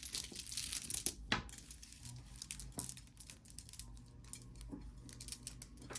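Jewelry being handled: beads and metal pieces click and clink lightly a few times, with faint rustling in between.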